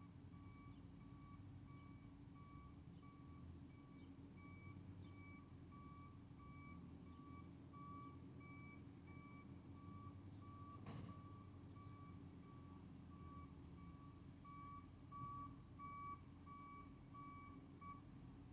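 Faint reversing alarm of a construction vehicle beeping steadily, about two beeps a second, over a low machinery rumble. A single click sounds about eleven seconds in.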